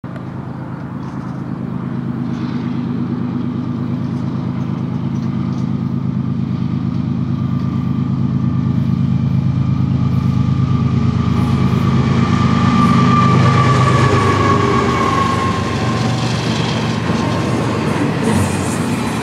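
A single Union Pacific diesel locomotive leading a double-stack intermodal train, its engine drone growing steadily louder as it approaches. About three-quarters of the way in, its engine note drops in pitch as it passes. After that the rumble of the stack cars rolling by takes over.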